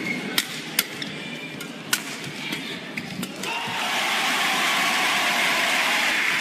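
Badminton rackets striking the shuttlecock in a rally, several sharp hits under a second apart, then from about three and a half seconds in a steady wash of crowd applause as the point ends.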